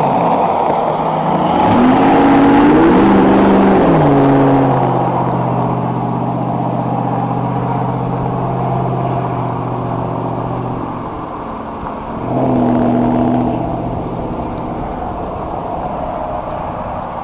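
A motor vehicle engine running, its pitch rising and falling a couple of times about two to four seconds in, then holding steady, then rising again briefly about twelve seconds in.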